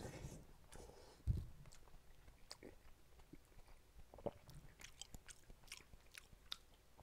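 A man chewing a mouthful of egg soup, with faint wet mouth clicks and smacks throughout and a soft low thump about a second in.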